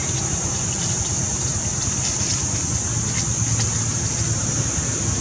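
Steady outdoor background noise: a low rumble under a constant high hiss, with no animal calls standing out.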